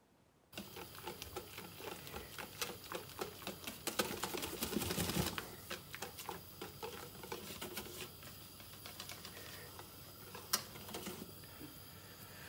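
Wire whisk beating thin pancake batter in a stainless steel bowl: a rapid, uneven ticking of the tines against the bowl and through the batter, starting about half a second in and busiest about four to five seconds in. One sharper knock comes near the end.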